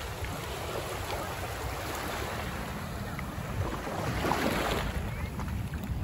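Wind buffeting the microphone over small waves washing up a sandy beach, one wash swelling about four seconds in.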